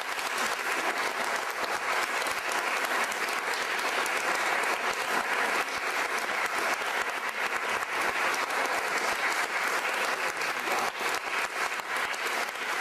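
Audience applauding steadily after the song: a dense, even clapping that starts suddenly just before and keeps up without letting off.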